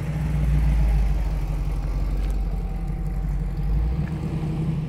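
A car engine running close by, a steady low rumble that is loudest about a second in and drops away about four seconds in.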